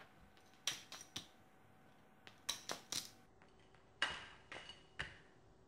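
Balisong (butterfly knife) being flipped open: a string of sharp metallic clicks and clacks as the handles swing around the pivots and strike each other, in three quick groups.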